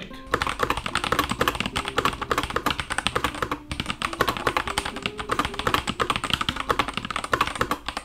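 Fast typing on an IQUNIX L80 Cosmic Traveller mechanical keyboard with TTC Speed Silver linear switches: a dense stream of keystroke clacks with a brief pause about three and a half seconds in. The space bar sounds quite clicky.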